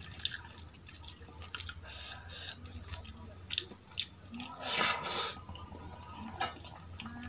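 Wet, squelching clicks of a hand mixing rice with soupy dal on a steel plate, with close-up chewing and mouth sounds. A louder stretch of wet mouth noise comes about four and a half seconds in, as a handful goes into the mouth.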